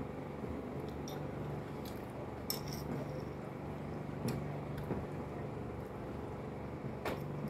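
Knife and fork clinking and scraping on glass plates as food is cut and eaten: a few scattered light clicks over a steady low hum.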